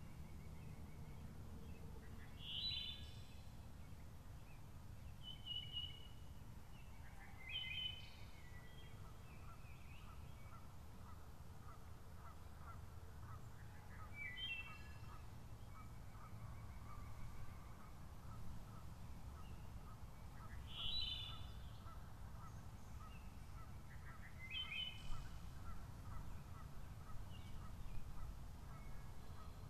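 Wood thrush singing: short fluting phrases every few seconds, over a steady low background rumble. A regular series of faint short notes runs through the middle.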